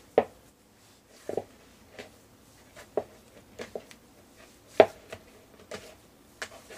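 Dough being kneaded by hand in a plastic bowl: irregular dull thumps and knocks as the hand presses the dough down into the bowl, the loudest about five seconds in.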